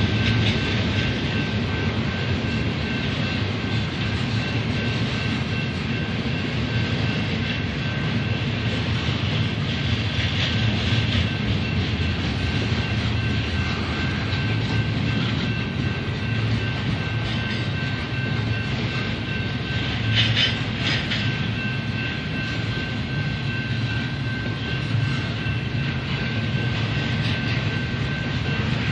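Union Pacific stack train's freight cars rolling past, with a steady rumble of wheels on rail and clickety-clack of wheels over rail joints. A thin steady high tone runs above it, and there is a brief spell of louder clatter about two-thirds of the way through.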